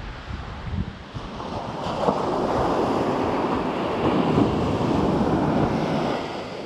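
Ocean surf breaking and washing up the beach, swelling about two seconds in and easing off near the end, with wind buffeting the microphone.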